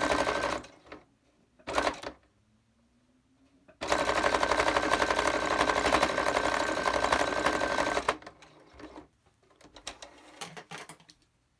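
Electric sewing machine stitching in runs. It stops about half a second in, gives a short burst at about two seconds, then runs steadily for about four seconds before stopping, with a few faint clicks after. It is backstitching to lock a mask's elastic strap in place.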